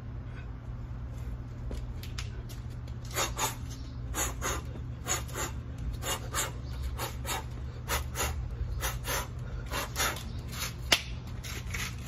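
A person breathing hard in quick in-and-out pairs, about one breath a second, out of breath from push-ups, over a steady low hum. A single sharp click comes near the end.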